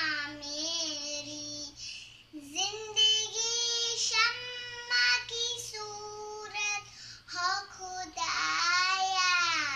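A young girl singing solo, holding long notes in phrases with short breaks between them.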